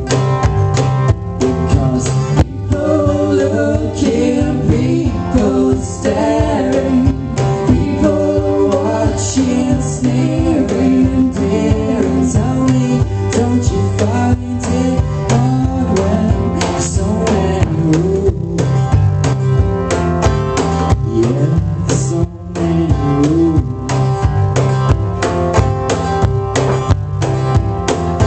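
Live band performing a song: a male lead vocal over a strummed acoustic guitar and an electric guitar, with a cajón slapped by hand keeping a steady beat.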